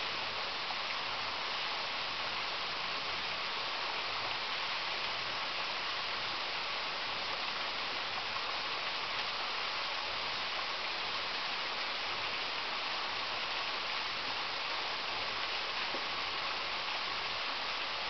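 Steady rush of pool water spilling over the pool's overflow edge.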